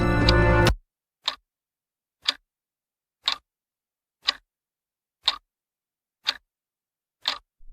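Ticking sound effect like a clock, one sharp tick a second, seven times in otherwise dead silence, after background music cuts off under a second in.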